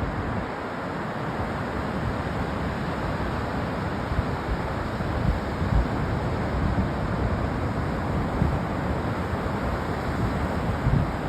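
Ocean surf washing steadily on a beach, with wind buffeting the microphone in low rumbles; a hard gust thumps the microphone right at the beginning.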